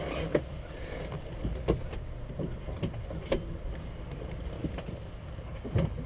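Light clicks and knocks of handling in a helicopter cockpit, a few scattered strikes, over a steady low wind rumble on the microphone.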